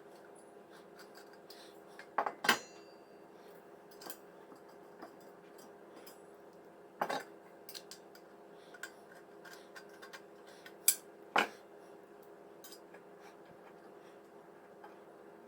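Steel bracket parts of an under-desk PC case holder clinking and knocking as they are handled, in scattered sharp metallic clanks, the loudest about two and a half seconds in, seven seconds in and around eleven seconds. A steady hum runs underneath.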